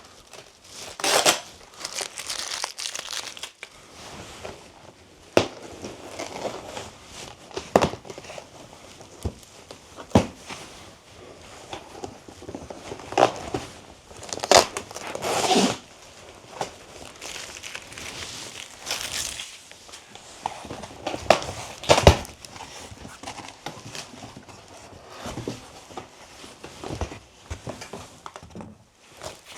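Packing material rustling and crumpling as a cardboard prize box is unpacked by hand, with some tearing and a few sharp knocks.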